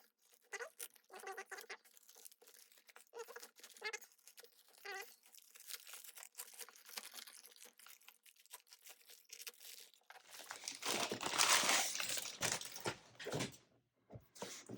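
Cardboard box and packaging being opened by hand: scattered light scrapes, taps and squeaks of cardboard, then a louder rustling tear of packaging lasting a few seconds near the end.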